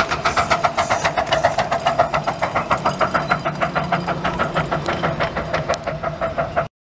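Miniature steam locomotive running with a quick, even beat of exhaust chuffs, about six or seven a second. The sound cuts off suddenly near the end.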